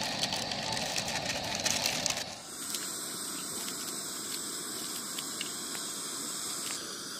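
Mutton curry gravy cooking in an open pressure cooker on a gas stove. For about two seconds there is clattering and scraping as it is stirred, then a steady hiss from the simmering pot and flame.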